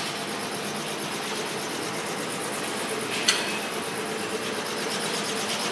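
Steady mechanical hum of workshop machinery, with one sharp click a little over three seconds in.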